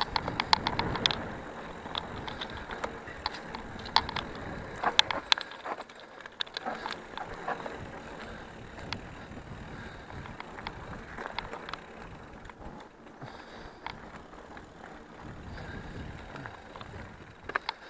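Mountain bike riding over a rough dirt-and-rock singletrack: tyre noise with frequent sharp clicks and rattles from the bike, busiest in the first six seconds and sparser after.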